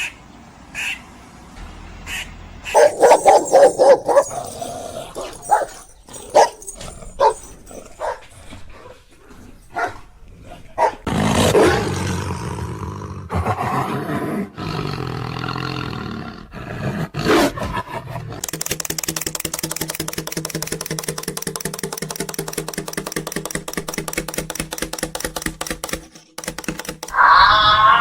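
A dog barking, with a quick run of barks about three seconds in and single barks after, then long stretches of growling. Music comes in near the end.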